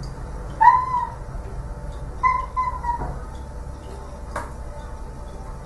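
Domestic cat meowing twice, short high mews about a second apart, followed by a single sharp click near the end.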